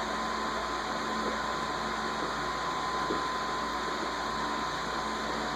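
Steady whirring background noise, like a fan or air conditioner running, with a constant high hum over it.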